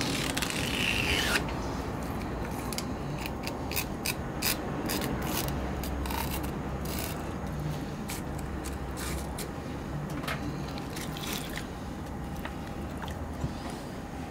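Knife filleting eel on a cutting board: a longer scrape of the blade, then a run of short scraping and clicking strokes, over a steady low hum.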